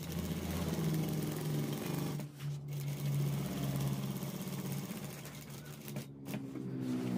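Typical industrial lockstitch sewing machine running, its needle stitching steadily through cotton fabric, stopping briefly twice, a little over two seconds in and about six seconds in.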